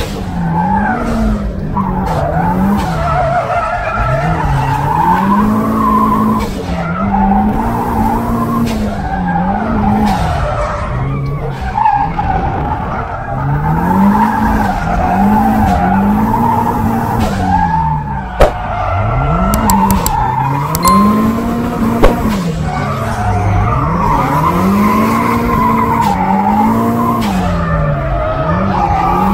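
Drift car's engine revving up and dropping back again and again as the throttle is worked through a drift, with tyres squealing under it. Two or three sharp knocks come in the second half.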